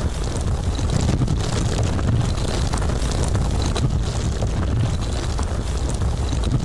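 Landslide sound effect: a steady deep rumble, with small clicks scattered over it.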